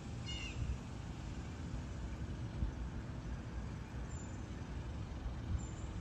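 A grackle gives one short, slightly falling call about a third of a second in, over a steady low rumble of distant traffic.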